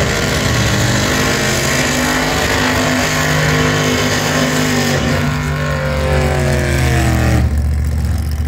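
Drag car, a Fox-body Ford Mustang, doing a burnout: the engine is held at high revs with a dense hiss of spinning rear tyres. About a second before the end the tyre noise cuts off and the engine drops to a lower, steadier note as the car rolls forward.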